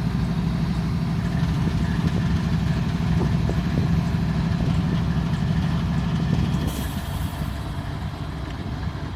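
CSX diesel locomotive engine running with a steady low rumble close by, easing off somewhat about two-thirds of the way in.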